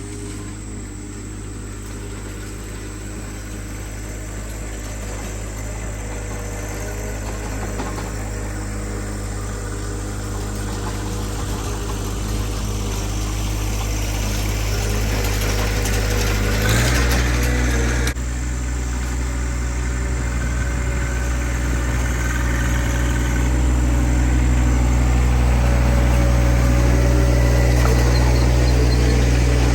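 Vehicle engine running steadily at an even pitch and growing gradually louder. About seventeen seconds in, a brief rattle comes as the engine note shifts and gets louder.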